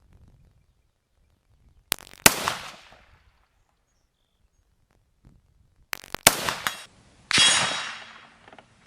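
Two rifle shots about four seconds apart, each with a trailing echo. About a second after the second shot comes a ringing clang that fades out, the bullet striking a steel target.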